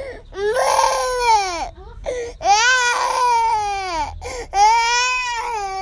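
A young child crying in three long wails, each rising and then falling in pitch, with short breaths between them.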